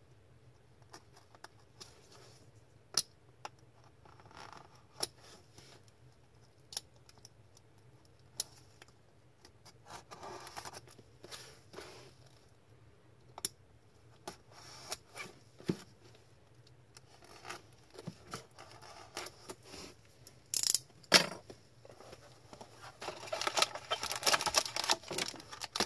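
Blade cutting the plastic shrink-wrap on a trading card hobby box: scattered sharp clicks and taps with short stretches of slicing and rustling. Near the end, a dense run of crinkling plastic and cardboard handling as the wrap comes off and the box is opened.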